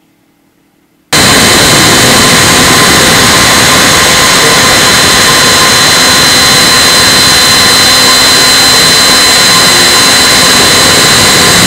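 CNC router spindle running and a 1/32-inch flat end mill carving a maple block. It starts abruptly about a second in: a loud steady hiss of cutting noise with a constant high whine from the spindle.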